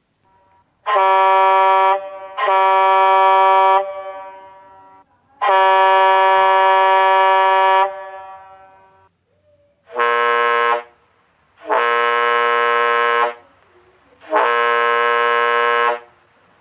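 Truck air horn sounding six separate blasts, each about one to two seconds long. The first three are higher-pitched and trail off in a short echo; the last three are lower-pitched.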